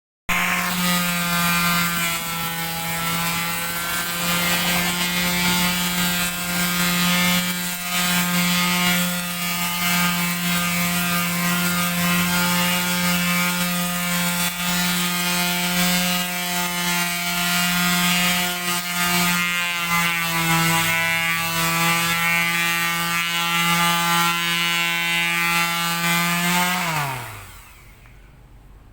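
Electric sander running steadily against wood, a constant motor hum over the rasp of the sanding pad; near the end it is switched off and the motor winds down to a stop.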